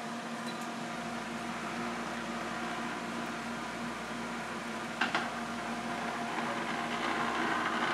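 Chocolate tempering machine running with a steady mechanical hum. About a second in, a deeper low rumble sets in as its vibrating table starts, shaking the chocolate as a mold is filled under the stream. A single knock comes about five seconds in.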